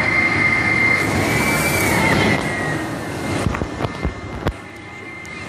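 Spinning carnival ride running, its cars sweeping past close by: a steady high whine over a rumbling rush. The sound drops off about halfway through, with a few sharp knocks near the end.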